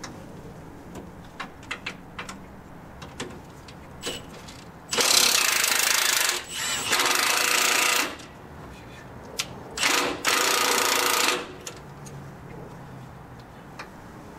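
Cordless impact wrench hammering on a lower control arm's mounting bolt to break it loose, in three bursts of about a second and a half each, about five, six and a half and ten seconds in. Light clicks and taps of tools on the arm come between the bursts.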